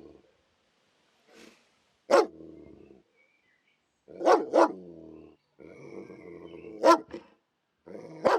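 Police dog barking in about five sharp barks, one of them a quick double, each trailing into a low growl.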